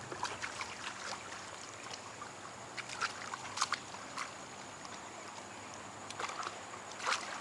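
Shallow creek water sloshing and trickling, with short irregular splashes every second or so.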